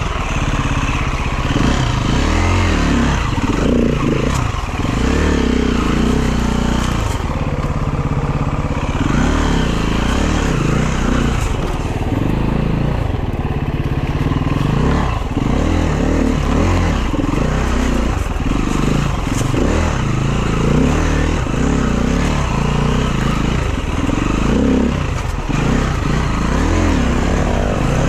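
Dirt bike engine revving up and down repeatedly, about once every second or two, as it is worked through hard enduro terrain, with some clatter.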